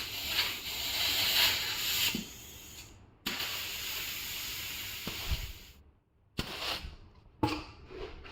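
Air hissing out of a tire's valve stem as the pressure is let down from 50 PSI toward 34 PSI, in a long release, a short pause, then a second steady release. A few short bursts of hiss follow near the end.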